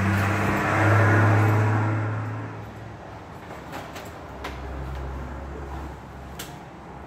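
A low mechanical drone that fades out over the first two and a half seconds, followed by a few light clicks and knocks as a curved flat-screen TV is handled.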